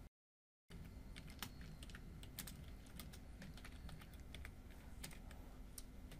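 Faint computer keyboard typing: irregular soft key clicks over a low steady hum. The sound cuts out completely for about half a second just after the start.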